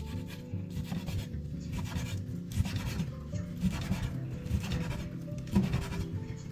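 Kitchen knife cutting through raw steak on a cutting board: a run of repeated rasping cuts, about two or three a second.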